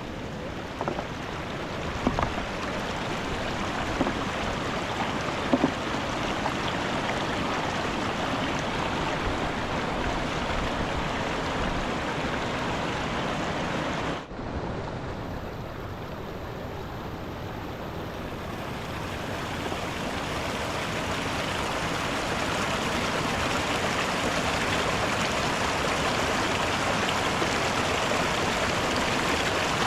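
Mountain river water rushing steadily, with a few light knocks in the first six seconds. About fourteen seconds in the sound breaks off for a moment, then goes on and grows louder.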